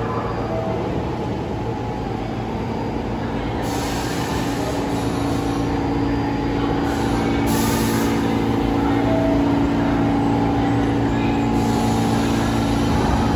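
New York City subway train running, a steady rumble with a held hum that grows a little louder about halfway through.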